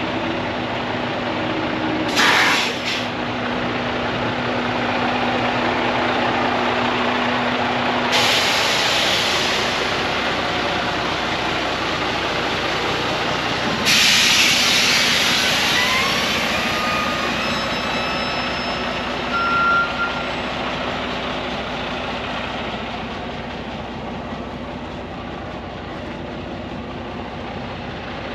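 Diesel engine of a Freightliner Cascadia semi tractor idling with a steady low hum. Over it come three sudden bursts of air hissing about six seconds apart: a short one, then two longer ones.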